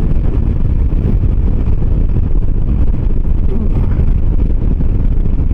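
Wind rushing over the microphone on a moving 125 cc motor scooter, with the scooter's engine and road noise running steadily underneath.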